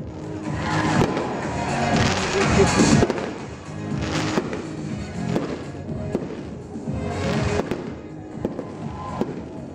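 Fireworks shells bursting overhead in a run of bangs and hissing showers, loudest about two to three seconds in, with further bursts near four, five and seven seconds, over music playing throughout.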